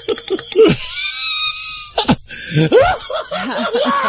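Radio-studio laughter in rapid ha-ha pulses, then a thin high-pitched squeal about a second in and more laughter, ending in a drawn-out wailing voice.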